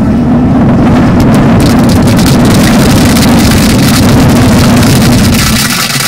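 A large bullet shell packed with about 32,000 matchsticks burning out as an upward flame jet: a loud, steady rushing that starts abruptly with ignition. About five and a half seconds in, the deep part of the rush drops away and it thins to a crackling hiss as the flame dies down into smoke.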